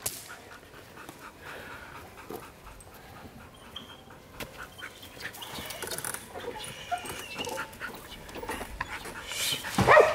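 Belgian Malinois on a leash panting and straining at a bite-suit decoy, breaking into loud barks near the end.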